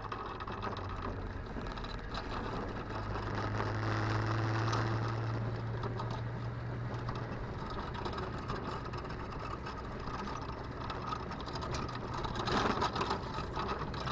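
Vehicle engine running steadily, with a continuous light rattle over a low hum.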